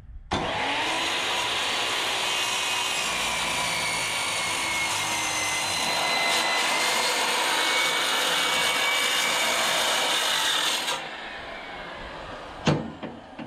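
Corded circular saw cutting through a steel truck frame rail, running steadily under load with a whine that sinks slightly in pitch, for about ten seconds before it stops. A couple of sharp clicks near the end.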